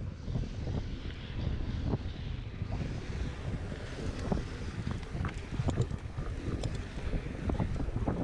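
Wind buffeting a GoPro Hero 5's microphone while a mountain bike is ridden along a dirt trail, over a constant rumble of tyres and drivetrain. Scattered short clicks and knocks come from the bike rattling over rough ground.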